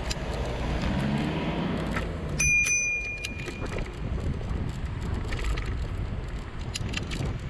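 A bicycle bell rung once: a single clear ding about a third of the way in that rings on and fades over about a second, over steady wind and traffic noise while riding.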